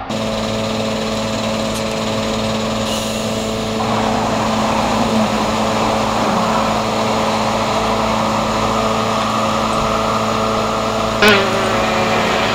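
An engine running steadily, its hum thickening about four seconds in. A sharp click with a brief falling squeal comes near the end.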